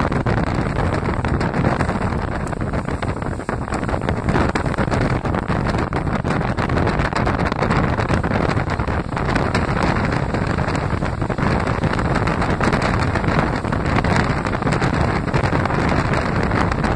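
Steady rush of wind on the microphone over the running noise of a moving diesel-hauled passenger train.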